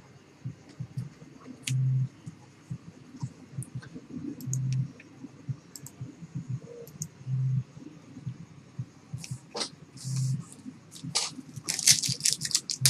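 Trading cards and a foil card pack being handled: soft scattered clicks and rustles, then louder crinkling of the pack wrapper near the end. A short low hum pulses about every three seconds.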